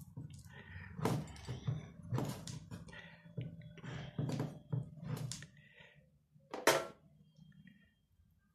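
A glass bottle being handled and dabbed with paint on a small sponge: about seven irregular thunks and taps, the loudest a little before the end, then quiet handling.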